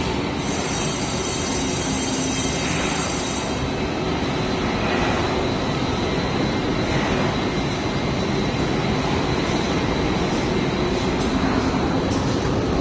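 Steady mechanical din of a running colour coating line for steel coil: rollers, drives and fans filling the hall with an even noise and a low hum.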